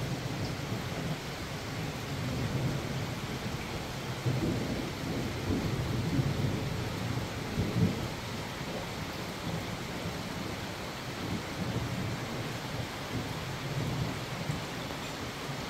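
Steady rain falling, with distant rolling thunder as a low rumble underneath that swells briefly about halfway through.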